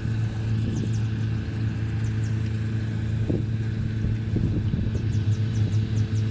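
Steady low drone of a small engine running, with faint short high-pitched chirps over it.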